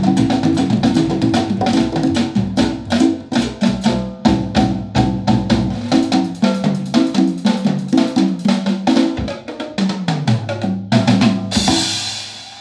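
Music with a drum kit and bass line played back through Wharfedale Denton 80 bookshelf speakers: a busy pattern of rapid drum hits over the bass. The music stops about eleven seconds in and gives way to applause.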